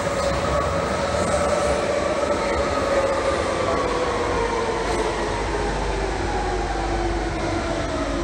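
London Underground Central line 1992 Stock train pulling into the platform and slowing down, with a steady rumble and a whine that falls slowly in pitch as it brakes.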